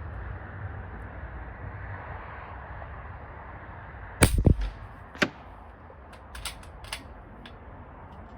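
A single shot from an AEA Challenger .25 air rifle about four seconds in, a loud crack with a short double report. About a second later a sharp click, then several lighter clicks.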